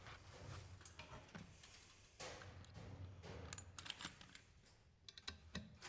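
Faint clicks and taps of hands handling the server's circuit-board parts, with a quick run of small clicks near the end.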